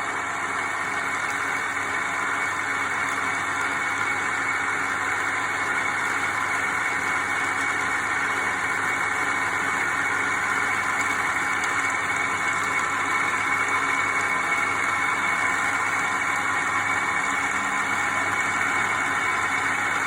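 Wood lathe running steadily, a constant machine hum and hiss with no change in speed.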